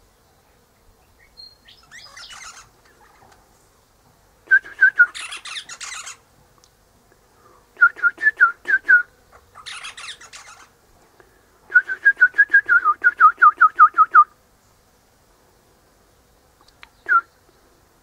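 Eastern rosella calling: four runs of quick, repeated piping notes, about four or five a second, mixed with higher scratchy chatter. A single note follows near the end.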